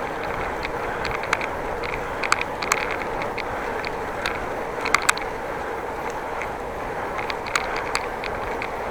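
Bicycle riding along: a steady rush of tyre and wind noise with many short clicks and rattles from the bike, a few louder ticks scattered through.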